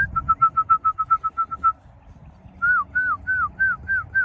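Loud whistling to call a homing pigeon in to the loft. A fast run of about a dozen short, level whistle notes comes first, then after a pause a string of about seven notes, each sliding down in pitch.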